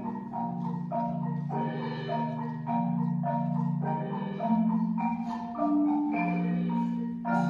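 Percussion ensemble playing, with marimba and bell-like mallet instruments leading in an evenly repeating figure of struck notes, about two a second, over held low notes.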